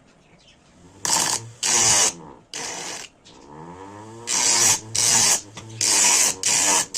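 Homemade hard-drive grinder, an HDD spindle motor with an abrasive disc, run in short bursts: about seven hissing grinds, each under half a second, over a low hum. Between the third and fourth burst the motor's pitch sweeps as it spins up and down.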